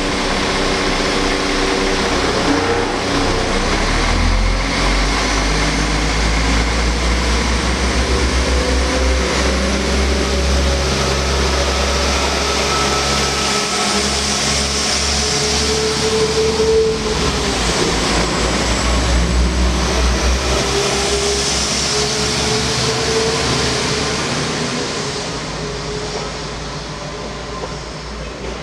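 West Midlands Railway Class 172 Turbostar diesel multiple unit moving past the platform under power. Its engines give a deep rumble with a whine that rises and falls, and the sound fades away over the last few seconds.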